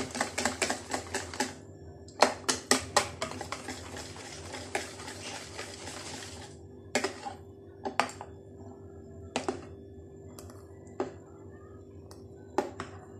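Wire whisk beating pancake batter in a plastic bowl: fast, rapid clicking of the whisk wires against the bowl, breaking off briefly about one and a half seconds in, then running again for a few seconds. After that only a few separate taps, with a faint steady hum underneath.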